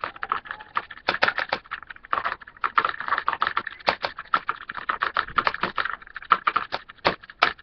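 Rapid, irregular clicking and tapping of a utensil against a plastic container while glue and red food colouring are mixed together for slime.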